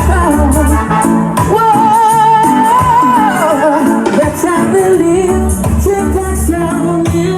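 Reggae dub plate playing loud through a sound system: a singer's voice over a heavy bass line, with one long wavering held note in the first half while the bass drops out, then the bass comes back in.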